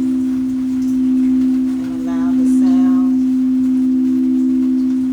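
Singing bowl sustaining a steady low hum of two close tones that swell and fade slowly. A brief higher call with several overtones sounds about two seconds in.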